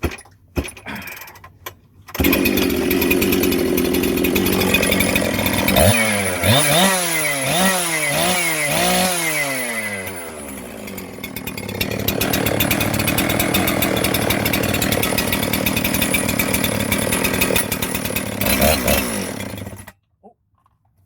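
Husqvarna 362 XPG two-stroke chainsaw, rebuilt with a 50 mm cylinder, starts after a couple of sharp clicks about two seconds in. It is revved up and down about five times, then runs steadily before cutting off suddenly near the end.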